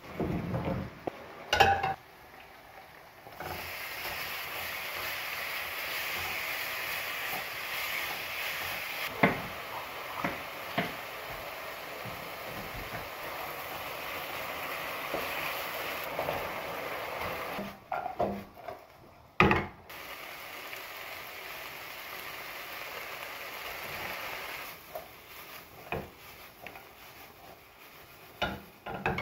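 Seasoned chicken pieces frying in a non-stick pan: a steady sizzle that starts a few seconds in, with the scrape and tap of a stirring utensil against the pan. Loud clanks of the utensil on the pan come around the middle, then a quieter sizzle and scattered knocks near the end.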